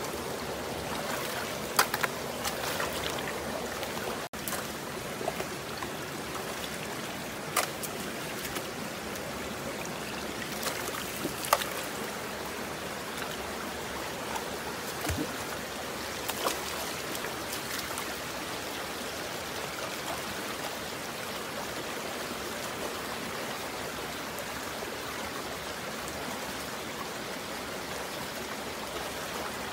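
Shallow rocky stream flowing and trickling steadily, with a few sharp clicks and splashes in the first twelve seconds, loudest about two seconds and eleven seconds in.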